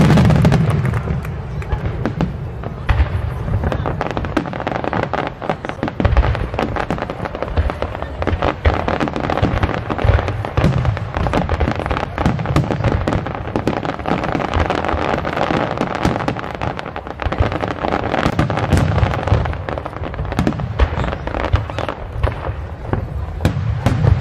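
Aerial fireworks going off in a continuous barrage of booms and sharp crackling pops, several a second, with people talking underneath.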